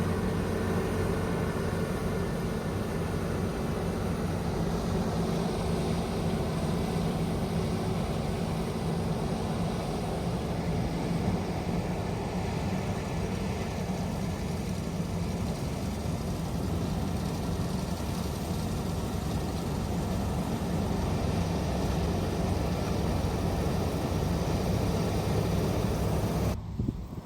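A heavy engine of farm machinery running steadily at constant speed, with a low even hum. The sound changes abruptly just before the end.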